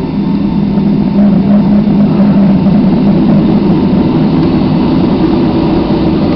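Jet airliner's engines and cabin noise heard from inside the cabin while the plane taxis: a loud, steady low drone with a hum, growing a little louder about a second in.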